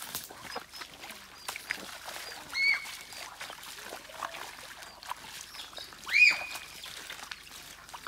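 Footsteps splashing through shallow muddy water and crunching over stones, with two short, loud, high whistled calls, one about two and a half seconds in and a louder one about six seconds in.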